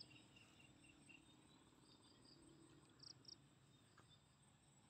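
Near silence with faint insects chirping: a steady high-pitched trill, and two short louder chirps about three seconds in.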